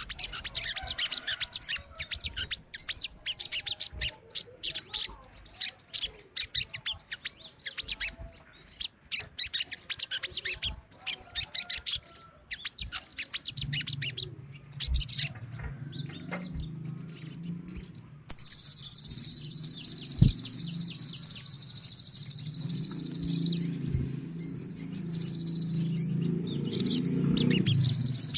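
A flock of sogon (crimson sunbirds) chirping and twittering in rapid, high, overlapping calls. From about halfway a low hum comes in, and a dense, continuous high trill runs under the chirps.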